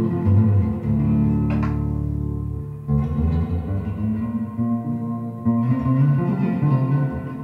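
Stratocaster-style electric guitar played solo: a low note is held for about two seconds from about a second in, then shorter changing notes and phrases follow.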